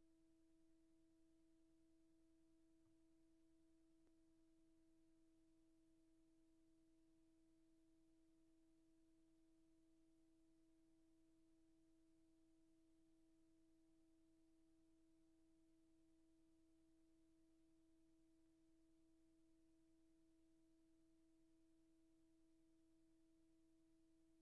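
Near silence, with only a very faint steady tone.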